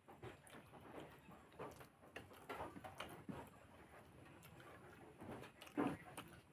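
Quiet eating sounds: a person chewing a meal of rice and curries, with soft, irregular mouth clicks and smacks, the loudest a little before the end.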